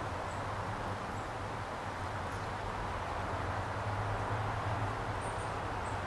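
Steady outdoor background noise with a low rumble, and a few faint, brief, high-pitched bird chirps.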